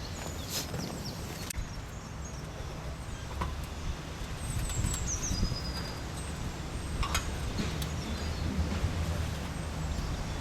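Outdoor ambience: a steady low rumble with a few short, high, falling chirps and some scattered clicks.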